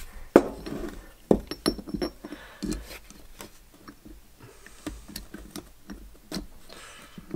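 Scattered light clicks, taps and scratches of hands handling a steel hydraulic ram cylinder while thin picture-frame wire is snaked through a hole in it and drawn out.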